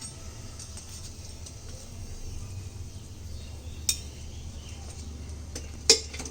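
Metal utensil clinking against cookware twice, about two seconds apart, the second louder, over a faint steady hiss of cutlets frying in oil.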